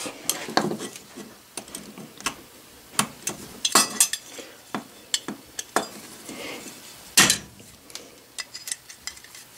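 Irregular light metallic clinks and taps as a small soldered brass engine frame and a pair of pliers are handled on a wooden workbench, with one louder clack about seven seconds in.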